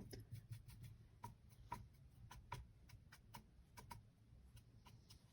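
Watercolour brush tapping and clicking against the palette while mixing paint: a fast, uneven series of faint light ticks, some with a short ring.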